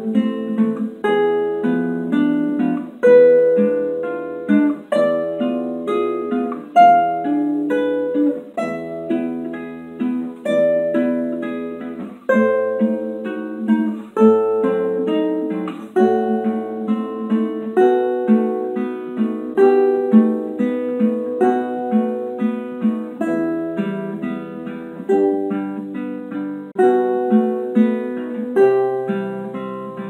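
Solo classical nylon-string guitar, fingerpicked: a steady run of quick plucked notes with an accented chord about every two seconds.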